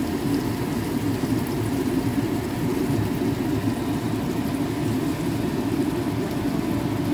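Meat barbecue skewers sizzling steadily on a ridged grill pan, over a steady low hum.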